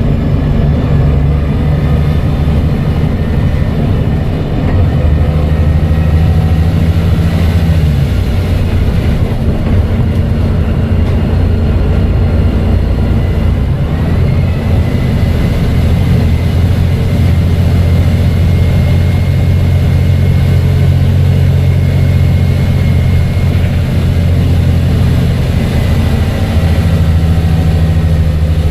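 Volvo B7TL double-decker bus's turbocharged six-cylinder diesel engine running under way, with a thin turbo whistle that rises about halfway through, holds steady, and falls away near the end. The low engine note drops about a third of the way in and picks up again near the end.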